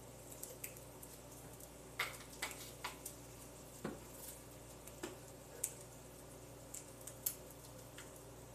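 Faint, scattered clicks and light knocks of kitchen utensils and containers being handled at the stove, over a steady low hum.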